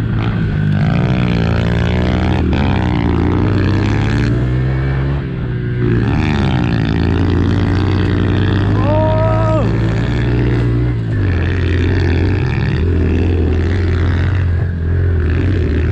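Small four-stroke pit bike engines running: a steady low drone with other engines revving up and down as the bikes ride the track.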